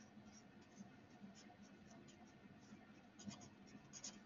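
Black marker writing letters on drawing paper: faint, short, irregular strokes of the tip on the paper, a little busier near the end.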